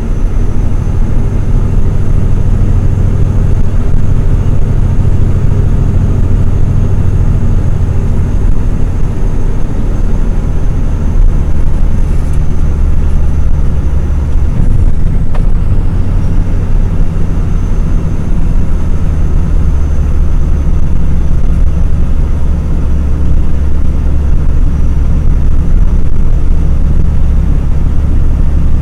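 Logging truck's diesel engine running steadily under way, a loud, even low drone heard inside the cab, with a faint thin high whine over it.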